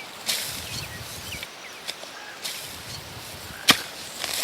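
Several brief rustling, scraping bursts with one sharp snap about three-quarters of the way through, and a few faint short chirps.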